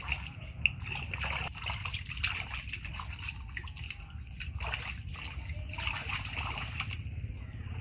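Water splashing and sloshing in a plastic basin as a baby monkey is washed by hand, in irregular splashes and trickles, with one sharp knock about half a second in.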